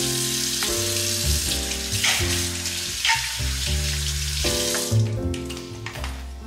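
Kitchen tap running into the sink while hands are washed under the stream, a steady hiss of water that stops about five seconds in. Background music plays throughout.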